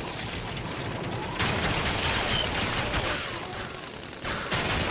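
Anime earth-style jutsu sound effect: a dense crackling rattle of rock, like a volley of blasts. It swells into a louder burst about a second and a half in, eases off, then bursts again near the end.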